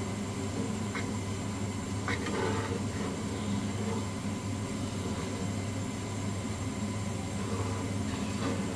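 A wooden spatula stirring a thin sauce in a wok, with a few light taps against the pan, over a steady low hum.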